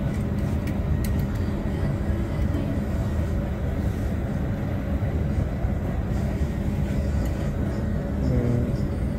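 Steady low rumble of indoor background noise, with a few faint clicks of plastic hangers sliding along a metal clothes rail about a second in.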